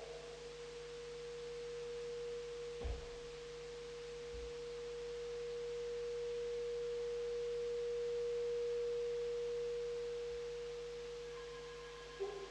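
A single steady pure tone at one mid pitch, like a sine wave, from an experimental instrument. It slowly swells louder and then fades, with a soft knock about three seconds in and a click near the end.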